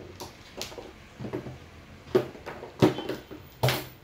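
Hand tools being picked up and set down on a tabletop: a series of about six knocks and clatters, the loudest two near the end.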